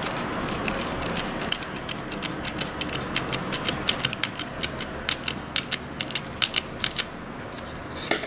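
Small precision screwdriver driving a tiny screw into the plastic housing of a BMW E90 iDrive controller: a run of sharp clicks, sparse at first and more frequent in the middle, with a louder knock at the very end.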